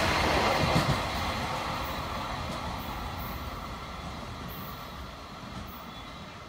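A freight train's container flat wagons rolling past at speed, loud at first and dropping about a second in as the last wagon goes by, then the rolling noise fades steadily as the train draws away.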